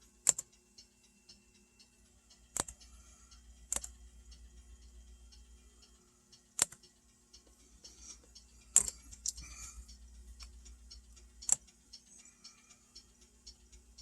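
Computer mouse clicking six times at uneven intervals, over faint lighter ticks and a low steady electrical hum.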